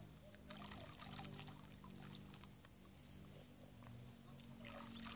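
Faint small splashes and drips of water as handfuls of cooked corn-and-pea groundbait are dropped into shallow lake water, with a cluster around the first second and another near the end. A faint low steady hum sits underneath.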